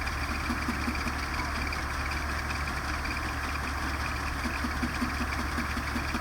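Engine of farm machinery running steadily with a regular pulsing throb.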